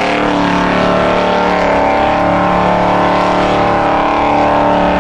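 Formula Offroad buggy's engine held at high revs under full load as the car climbs a steep sand hill; a steady, even pitch.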